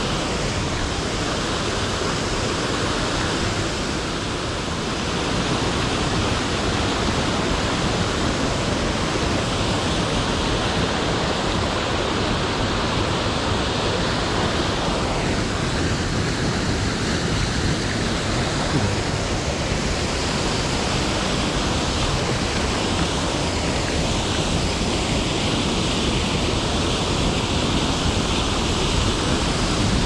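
Waterfall pouring: a steady, loud rush of falling water with no let-up.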